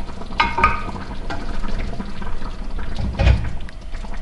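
Broth dripping and splashing off cooked chicken thighs as they are set into a glass baking dish with a wooden spoon, with a few light knocks of the spoon and chicken against the glass.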